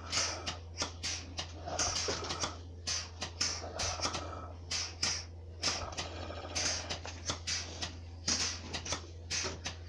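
Milk being hand-milked into a pail: short hissing squirts that come a few times a second in an uneven rhythm, with a steady low hum beneath.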